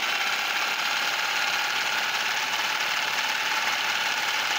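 Homemade paint shaker running steadily: a variable-speed reciprocating power tool at about a third speed, rapidly shaking a clamped bottle of primer.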